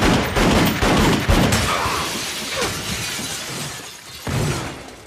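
Movie action-scene sound effects: two .45 1911 pistols firing and glass shattering, with a long crash of breaking and falling glass that fades out. A second shorter crash comes about four seconds in.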